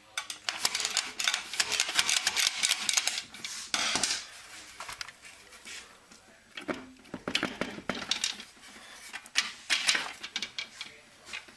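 Metal clutch and gear-train parts of a 6R80 automatic transmission clicking and rattling as the assembly is turned by hand and pressed down into the case to seat. A dense run of rapid clicks for the first few seconds, then shorter clusters of clicks.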